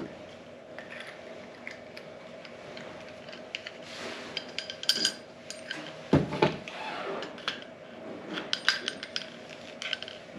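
Metal water-meter adapters and fittings clinking and knocking together as they are handled, with a few louder knocks about six seconds in, over a steady hum.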